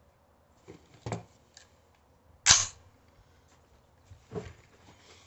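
AR-15 rifle firing three shots over about three seconds, the middle shot much the loudest.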